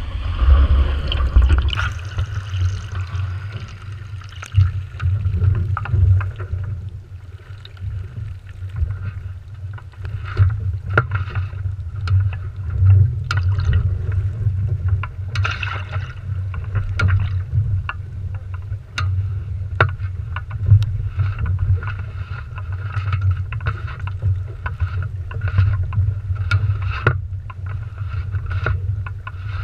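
Water sloshing and slapping against a small sailing dinghy's hull just after it has been righted from a capsize, with frequent sharp knocks from the boat and rigging over a steady low rumble. In the first two seconds the sound is muffled and gurgling as the mast-mounted camera comes up out of the water.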